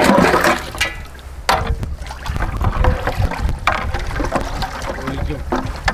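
Ice cubes tipped into a vessel of milk: a brief rush of sliding and splashing at the start, then a few separate knocks, over a steady low rumble.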